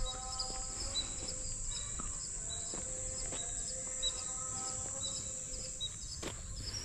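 Outdoor ambience: a steady high-pitched insect drone with short bird chirps repeating every second or so, and a faint tap about six seconds in.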